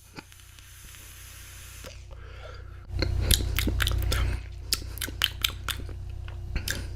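E-cigarette being puffed: a faint airy hiss, then from about three seconds in a run of crackling, popping clicks from the vape coil over a low hum.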